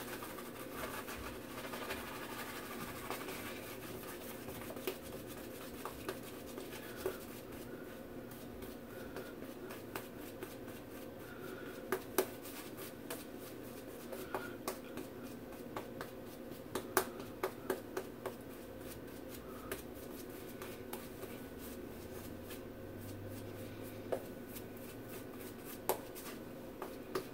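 Shaving brush working shaving-soap lather over a shaved scalp: faint, soft brushing with scattered small sharp clicks.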